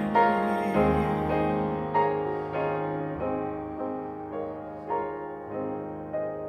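Solo piano playing slow, soft chords without singing, each struck chord ringing and dying away, the whole getting gradually quieter as the song winds down.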